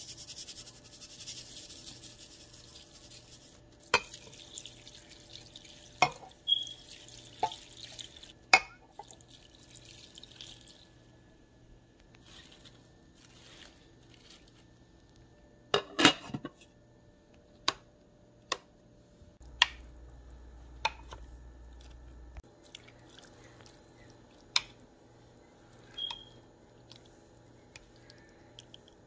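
Short sharp knocks and clicks of things being handled in and against a slow cooker's stoneware crock, with a rustling hiss in the first few seconds. A close cluster of knocks about halfway through, as neck bones go into the pot of raw kale.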